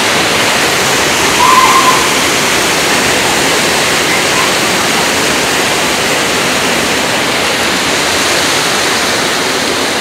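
Man-made concrete waterfall pouring into its pool: a loud, steady rush of falling water. A brief higher-pitched sound cuts through it about one and a half seconds in.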